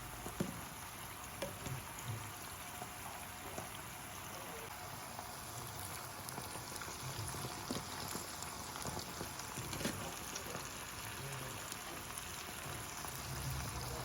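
Pork adobo simmering in a frying pan, a faint steady bubbling sizzle, with a few light clicks.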